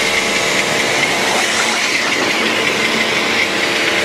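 Pressure washer running and spraying soapy water through a foam cannon: a steady motor hum under the hiss of the water jet.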